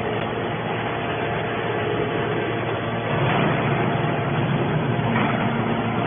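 Y81-250 hydraulic scrap metal baler running: a steady mechanical hum and hiss from its hydraulic power unit, with no impacts.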